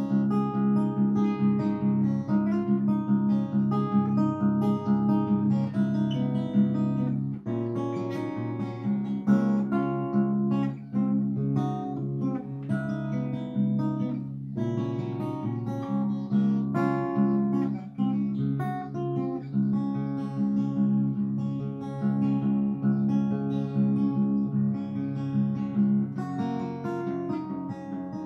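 Acoustic guitar played solo, an instrumental piece of quick picked notes over sustained low bass notes.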